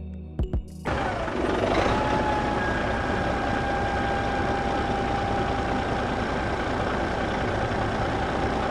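A motor starts about a second in and runs steadily with a faint high whine.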